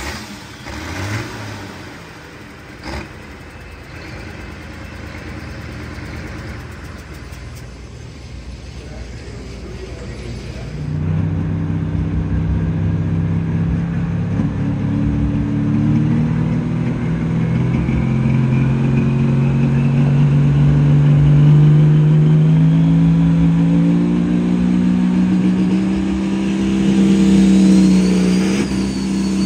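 Pulling tractor's diesel engine. The first stretch is quieter, then about a third of the way in the next tractor opens up at full throttle on its pull, and the engine's pitch climbs slowly from there to the end, with a high whine rising over it in the later part.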